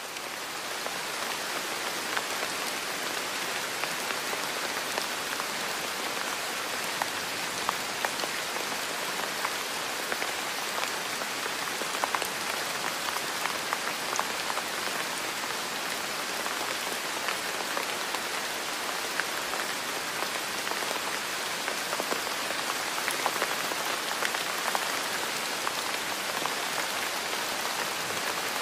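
Steady rain: an even hiss of falling rain with many scattered sharp drop ticks, fading up at the start and then holding level.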